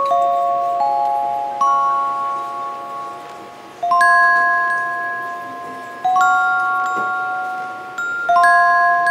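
Background music of slow, ringing bell-like notes, a few struck together about every two seconds and left to fade.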